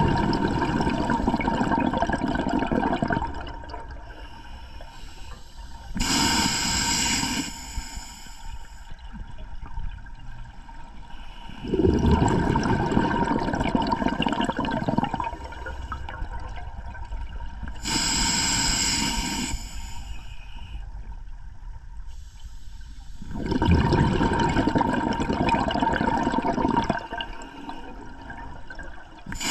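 A scuba diver breathing underwater through an open-circuit regulator, close to the microphone: three long rushes of exhaled bubbles, each about three seconds, alternate with shorter hissing inhalations. There is one slow breath about every twelve seconds.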